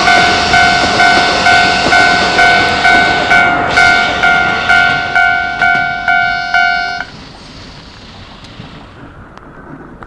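Japanese railway level-crossing alarm ringing, a two-tone electronic clang about twice a second, over the running noise of a passing Keikyu 1000-series electric train. The alarm cuts off suddenly about seven seconds in, leaving the quieter rumble of the train.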